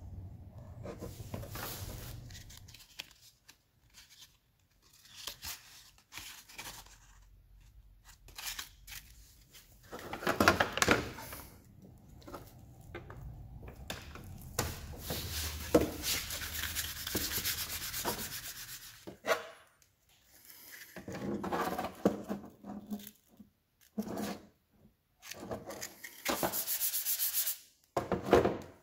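Sanding: sandpaper rubbing over a surface in bursts of strokes separated by short pauses.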